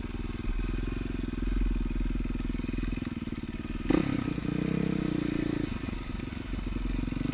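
KTM LC4 400 single-cylinder four-stroke engine running steadily at low revs, then opened up about four seconds in as the bike moves off on dirt, its pitch rising and falling.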